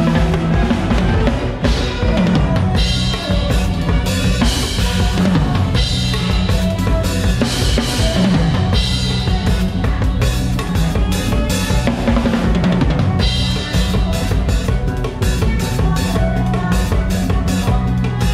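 Drum kit played live at a fast, busy beat: kick, snare and rimshot hits with cymbal crashes, the drums close-miked and up front over a band with electric bass.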